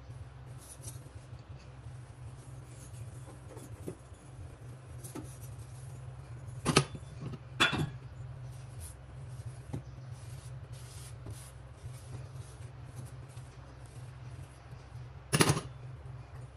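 Cloth wiping the glass top of a gas hob, with soft scratchy rubbing over a steady low hum. Three sharp knocks stand out: two close together about seven seconds in and one near the end.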